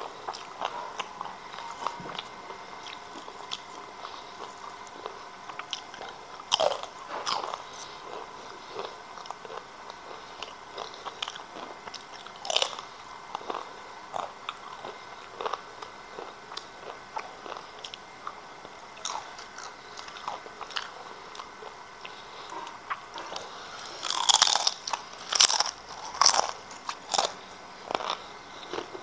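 Crisp fried breadfruit chips being bitten and chewed close to the microphone: irregular dry crunches, with a louder, denser run of crunching about 24 seconds in.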